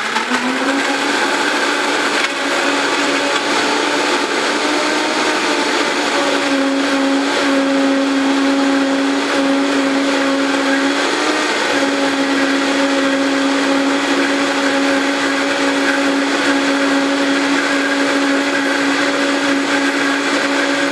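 Countertop blender puréeing mango chunks with coconut milk: the motor comes up to speed at once and runs at a steady pitch, a hum with a whine and a hiss over it, wavering briefly near the middle.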